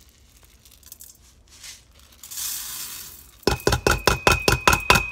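Steel-cut oats pouring out of a measuring cup into a stainless steel Instant Pot inner pot with a soft rush. About three and a half seconds in comes a fast run of sharp taps, about four or five a second, as the cup is knocked against the pot to empty it, and the steel pot rings with a steady high tone.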